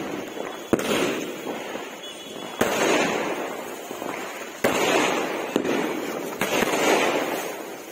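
Aerial fireworks bursting one after another, about five times: each a sharp bang followed by a noisy tail of spark crackle that fades over a second or two.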